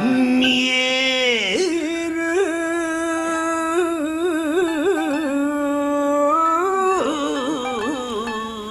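An elderly man singing rōkyoku (naniwabushi): one long, drawn-out melismatic vocal line on held vowels, wavering and bending in pitch, dropping lower about seven seconds in.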